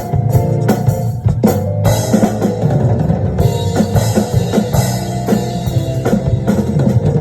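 Drum kit played along with pitched backing music: heavy, spaced hits for the first two seconds, then a denser steady beat with cymbals over held notes.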